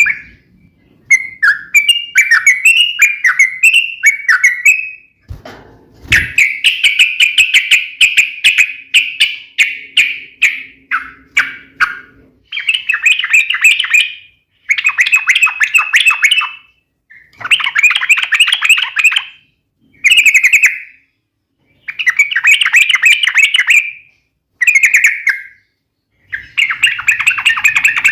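Yellow-vented bulbul (trucukan) singing loud, fast chattering phrases, about ten of them, each a second or two long with short pauses between. This is the sharp, rapid song used to provoke other trucuk birds into answering.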